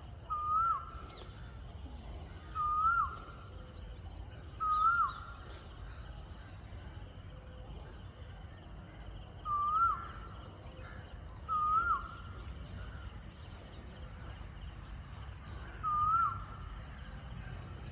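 A bird calling: six short single notes, each a quick rise then a sharp drop in pitch, spaced about two seconds apart with a longer pause midway, over a steady low rumble of wind on the microphone.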